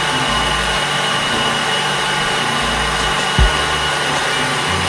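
KitchenAid Artisan stand mixer running steadily at speed, whipping eggs until frothy in its steel bowl, with a single brief low knock about three and a half seconds in.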